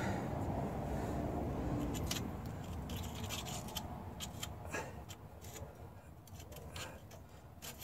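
A small metal hand tool scraping and clicking against the steel of a homemade ball joint press, in a quick irregular run of short clicks and scrapes from about two seconds in. A low steady rumble fades away over the first couple of seconds.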